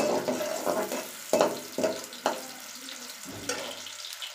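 Sliced onions and whole spices sizzling in hot oil in a metal wok, stirred with a metal slotted spoon that clacks against the pan four times in the first half.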